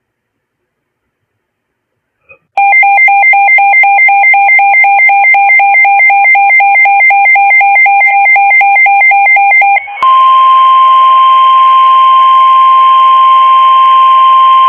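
A weather radio receiver's alert alarm beeping rapidly for about seven seconds, then the NOAA Weather Radio warning alarm tone: one steady, loud tone near 1 kHz over radio hiss, signalling that a warning broadcast is about to follow.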